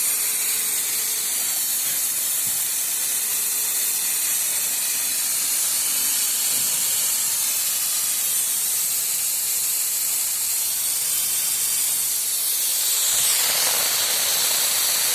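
Steady hiss of a pressurized spray, as in decarbonising a car engine's combustion chamber; about thirteen seconds in, the hiss swells and turns fuller and lower.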